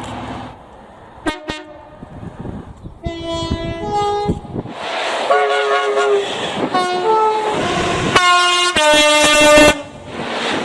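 Diesel locomotive two-tone horns sounding a series of blasts, stepping between a higher and a lower note, one sounded as a chord, over the rush of a passing train. The longest and loudest blast comes near the end.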